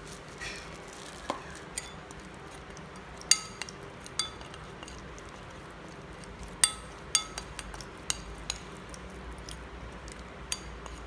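A spoon clinking against a bowl while spice paste is mixed: a handful of sharp, separate clinks, each with a short ring, among quieter scraping.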